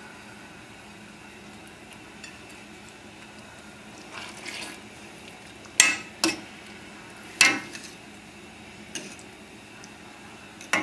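A stainless steel pan lid and a metal spoon clanking against a stainless steel pan of simmering sauce: a short scrape about four seconds in, then several sharp metallic clanks that ring briefly, the loudest two about a second and a half apart.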